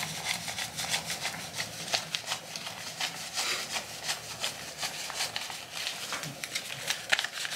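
Paper banknotes (US dollar bills) being counted by hand, a run of short crisp flicks and rustles of paper.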